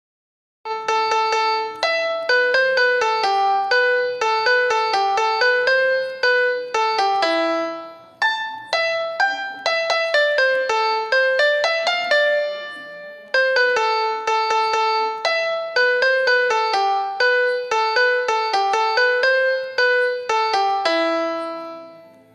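Phone ringtone: a melody of single piano-like keyboard notes that starts about a second in, repeats its phrase in a loop, and fades out near the end.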